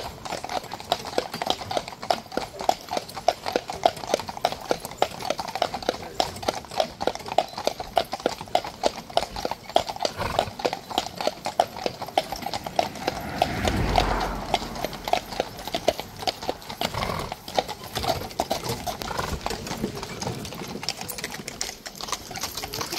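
Horse hooves clip-clopping on an asphalt road in a steady rhythm, from a carriage horse and the other horses around it. A rumble swells and fades just past halfway.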